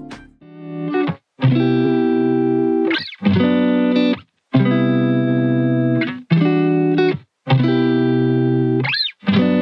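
Background music: long held chords played in phrases of one to three seconds, each cut off abruptly by a short silence, with a quick rising-and-falling pitch sweep twice.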